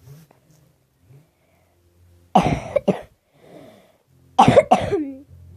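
A person coughing in two bouts about two seconds apart, each made of two quick coughs.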